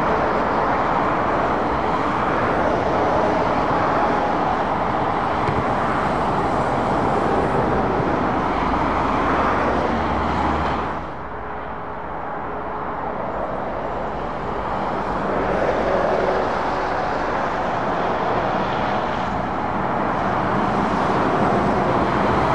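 Motorway traffic passing below: heavy lorries and cars with a steady rush of tyre and engine noise. It dips briefly about halfway through, then builds again as more vehicles approach.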